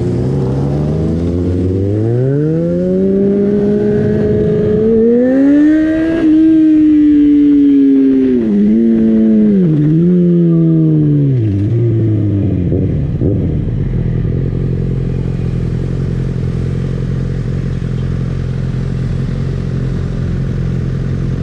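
Yamaha XJ6's inline-four engine rising steadily in pitch as the motorcycle accelerates, holding high revs with two brief dips, then dropping back as it slows. It then idles steadily among other motorcycles' engines, stopped at a junction.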